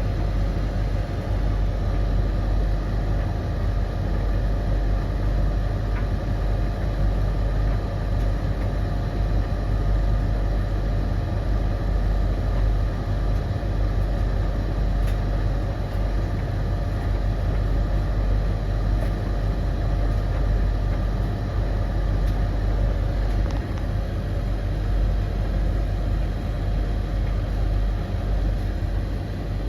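Three tumble dryers, a Blomberg LTK310030W, a Russell Hobbs RH3VTD800 and a Hoover HLEC8TRGR-80, running together mid-cycle: a steady low rumble of turning drums and motors with a constant hum over it.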